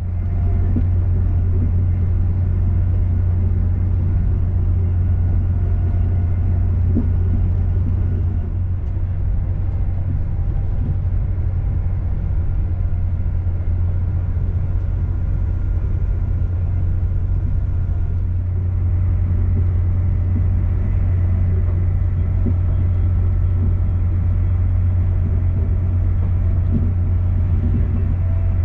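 Inside a Class 221 Super Voyager diesel-electric train under way: a steady low drone from the underfloor diesel engine, with the rumble of the wheels on the track.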